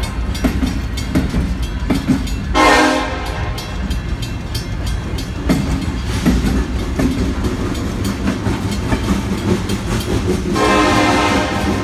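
Freight train rolling past a grade crossing: steel wheels clattering over the rails over a steady low rumble. The locomotive horn sounds a short blast about two and a half seconds in and a longer one near the end.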